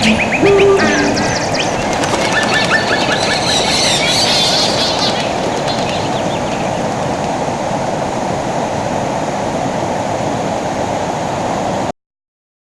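Steady rushing outdoor noise, with birds chirping in quick repeated notes during the first few seconds; it all cuts off suddenly near the end.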